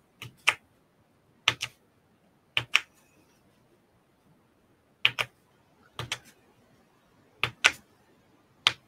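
Paper piercing tool punching holes through stencilled cardstock into a foam pricking mat to mark stitching holes. It makes sharp clicks, mostly in close pairs, about one pair a second, with a pause of a couple of seconds in the middle.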